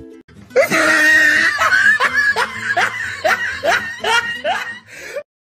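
A person laughing in a quick, even run of about a dozen "ha" bursts, starting about half a second in and stopping just before the end.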